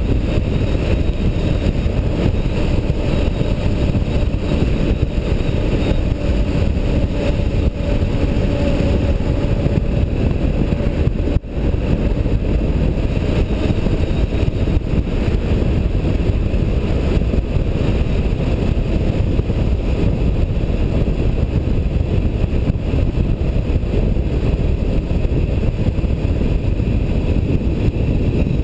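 Steady engine and road noise of a moving vehicle, heard from a camera mounted on it, with a dense low rumble. The sound briefly drops out about eleven seconds in.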